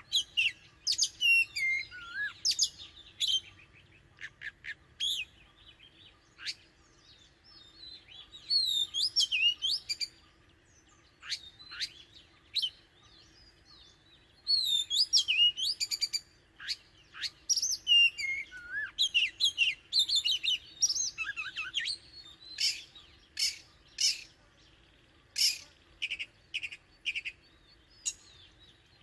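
Oriental magpie-robin singing: phrases of varied clear whistles and gliding notes separated by short pauses, with a run of short sharp notes in the second half.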